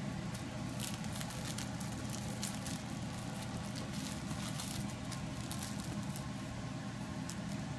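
Whippet puppies scuffling and wrestling on a fabric dog bed: scattered light rustles, pats and clicks of paws, claws and bodies on the bedding, over a steady low background hum.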